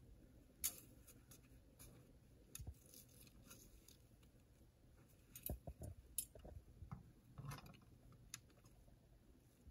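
Faint, scattered clicks and crunches as hands work a #2 Bridger foothold trap and its chain open. There is a sharp click just under a second in and a cluster of clicks about five to six seconds in.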